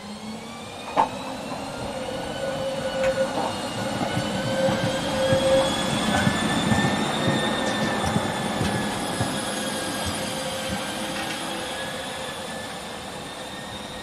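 A tram passing close on a curve, its wheels squealing in several steady high tones that slowly waver in pitch over the rumble of wheels on rail. There is a sharp clunk about a second in, and the sound is loudest in the middle as the tram goes by, then fades.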